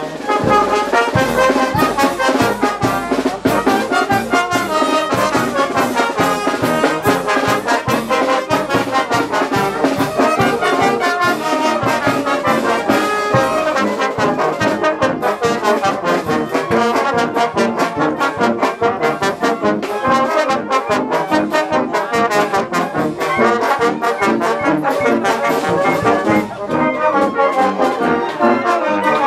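Brass band playing lively dance music, trumpets and trombones over a steady drum beat.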